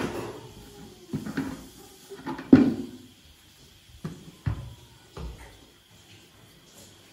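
Irregular hollow knocks and thuds of upturned hard plastic buckets being handled and tapped by a small child, a knock every second or so, the loudest about two and a half seconds in, quieter near the end.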